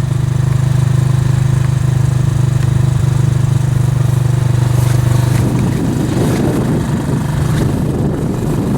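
Honda three-wheeler's small engine idling steadily; about five and a half seconds in, the even note breaks up into a rougher, uneven engine sound.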